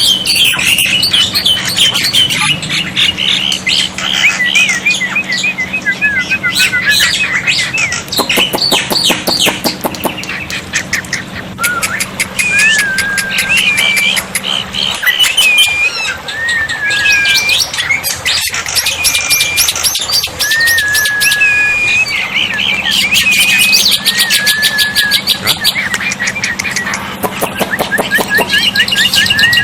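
Black-winged myna (jalak putih) calling non-stop: short sliding whistles, fast rattling trills and harsh squawks, the chattering song used as 'masteran' to train other birds.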